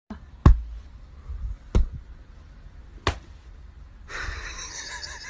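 Three sharp knocks about a second and a half apart, the first the loudest, then a steady hissing, rustling noise that starts about four seconds in.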